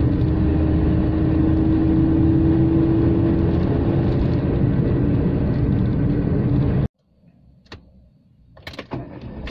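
Inside the cabin of a 1999 Daewoo Matiz on the move: its small three-cylinder engine running steadily under road and tyre noise, with a steady droning tone. About seven seconds in, the sound cuts off suddenly to a quiet parked car, with a few faint clicks and rustles.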